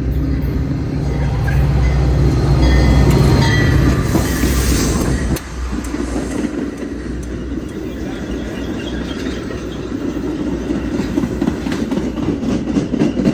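Metra commuter train pulling into the station. A diesel locomotive rumbles loudly past for the first five seconds, with brief high squeals. After a sudden drop in level, the passenger cars roll by with steady wheel rumble and clicks over the rail joints.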